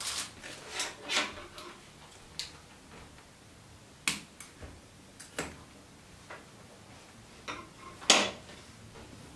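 Irregular clicks, taps and light scrapes of thin wire pieces and cables being handled and set down on a chipboard board, with one louder knock about eight seconds in.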